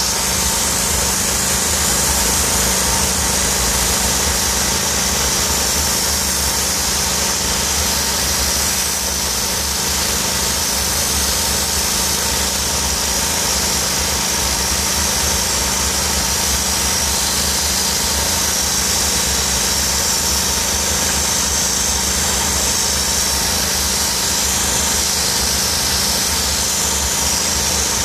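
DOFF steam cleaner jetting superheated steam from its hand lance onto brickwork: a steady loud hiss over the continuous drone of the machine's engine.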